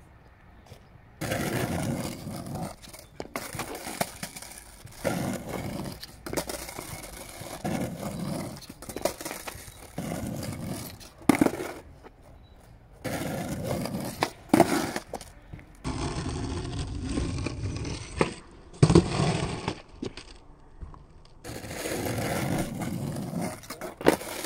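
Skateboard wheels rolling on rough asphalt over several runs of ollie attempts, a steady rumble that starts and stops. It is broken by a few sharp, loud clacks of the board hitting the ground, about 11, 14 and 19 seconds in.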